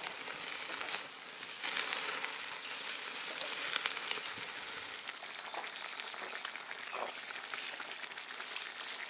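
Meatballs sizzling on a charcoal grill grate: a steady frying hiss with small crackles. About five seconds in the sizzle drops to a quieter hiss, with a few sharper pops near the end.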